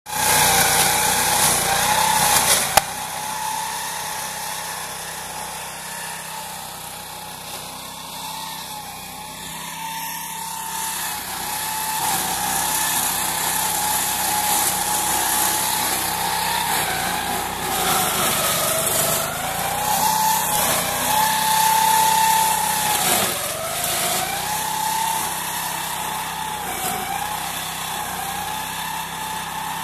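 Small petrol engine of a walk-behind meadow mower running fast while its chain-flail rotor shreds grass and brambles. The engine note sags and recovers several times as it bogs under the load of the brush.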